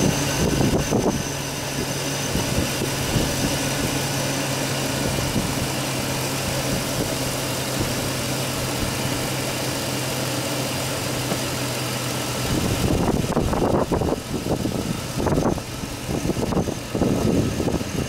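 Chevy 4.8-liter V8 idling with a steady hum: a truck that has a multi-cylinder misfire code. About 13 seconds in the hum fades under irregular rough, gusty noise.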